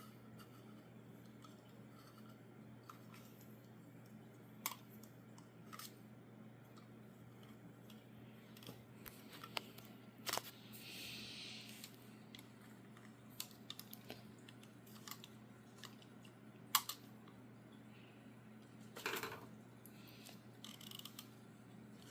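Scattered small clicks and taps of plastic toy tools being handled, with a short scraping hiss about eleven seconds in and a sharper click near the end, over a low steady hum.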